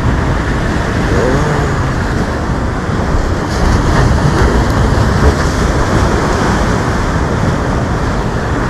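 Steady rush of ocean surf washing against concrete jetty blocks, with wind buffeting the microphone.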